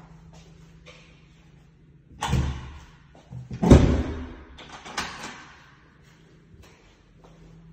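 A door being shut: a knock, a heavy thud about halfway through (the loudest), then a lighter knock, over a low steady hum.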